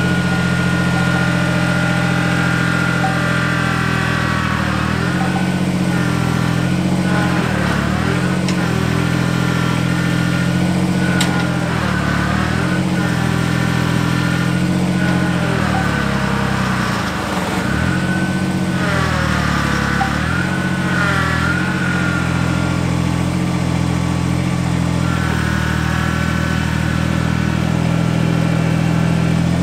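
Kubota compact tractor-loader-backhoe's diesel engine running as the machine is driven and worked, its speed dipping several times, with a whine that rises and falls over it.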